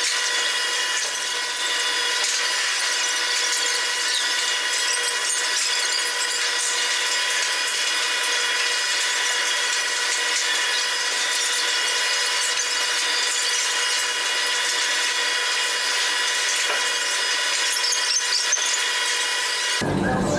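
Rotary milking parlour machinery running: a steady high-pitched whine over a hiss, changing abruptly to a different sound near the end.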